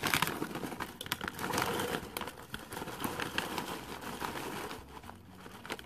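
Popcorn being poured from a foil-lined snack bag into a tall drinking glass: the bag crinkles while the popped kernels tumble and click against the glass and each other. The rustle and clicks are loudest in the first couple of seconds and thin out near the end as the pour slows.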